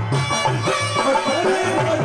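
Live Rajasthani folk devotional music: a hand drum keeps a steady beat of about three strokes a second under a sustained melody.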